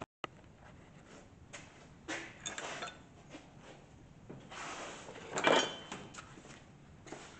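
Metal parts and tools handled on a shop bench: scattered clinks and knocks, with a louder ringing metal clank about five and a half seconds in.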